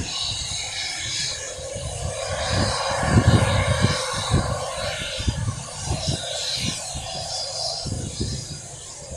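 Eurofighter Typhoon's twin EJ200 jet engines running at taxi power, a steady jet hiss with a faint whine. Heavy wind buffeting on the microphone rumbles and thumps beneath it, loudest about three seconds in.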